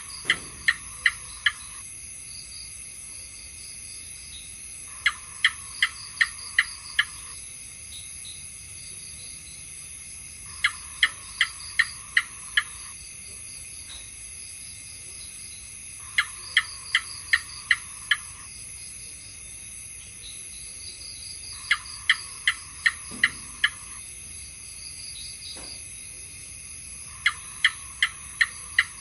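House gecko calling: quick runs of five or six sharp chirps, repeated about every five and a half seconds, six runs in all, over a steady high insect hum.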